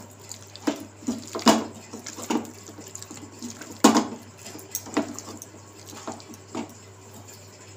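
Hand squishing and kneading small chicken pieces in a sticky marinade of cornflour, butter and soy sauce in a plate: irregular wet squelches and clicks, a few louder ones.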